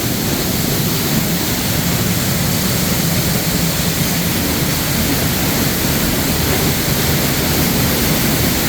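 Waterfall pouring, a loud, steady rush of falling water close by.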